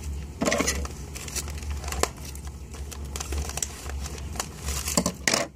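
Paper wrapping crinkling and rustling in short, irregular bursts as a wrapped package is opened by hand.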